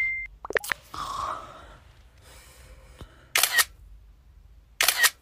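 A steady high chime fades out at the start. Two camera-shutter clicks follow later, about a second and a half apart.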